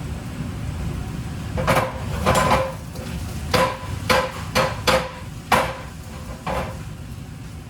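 A heavy knife chopping on a wooden cutting board: about eight hard, irregularly spaced strikes, each with a brief ringing tone, starting a couple of seconds in.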